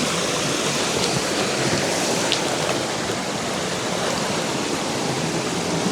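Creek water running steadily in an even rush, with a few faint ticks over it.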